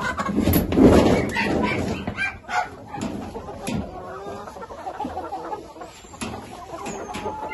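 A flock of Rhode Island Red hens clucking, many short calls overlapping. About a second in there is a loud burst of noise that is louder than the calls.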